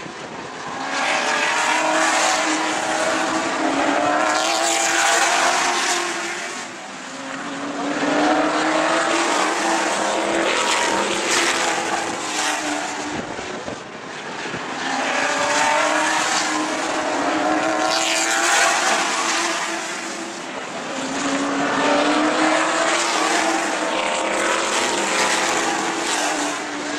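Sportsman stock car engines running at full throttle as the cars race past. The sound swells and fades about every six or seven seconds, with the engine pitch dropping as each pack goes by.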